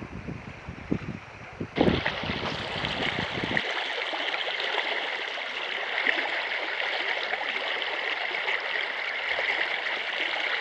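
Rushing river water, a steady even hiss that comes in suddenly about two seconds in, after a few low knocks and bumps.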